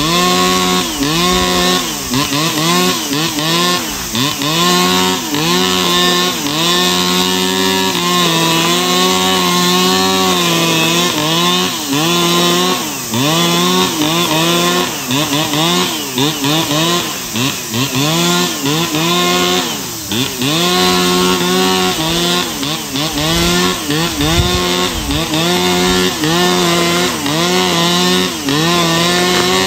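Two-stroke brush cutter with a nylon-cord head running at high revs, its engine note dipping and recovering every second or two as the cord cuts into grass.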